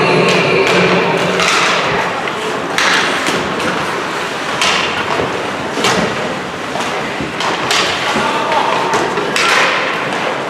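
Ice hockey play in an echoing rink: skates scraping and stopping on the ice in repeated short hissing rasps, with sticks and puck knocking and thuds off the boards.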